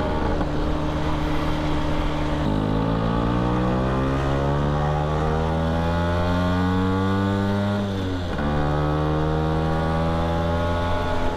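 1974 Vespa Rally 200's two-stroke single-cylinder engine running under way. Its pitch drops about two and a half seconds in, as at a gear change, then rises steadily as the scooter accelerates. It dips briefly again about eight seconds in and holds steady after.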